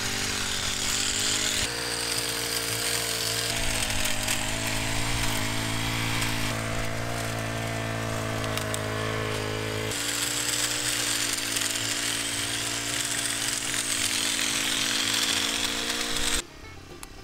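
Small petrol engine of a pole hedge trimmer running steadily, its pitch wavering slightly. The sound changes abruptly twice and drops away sharply near the end.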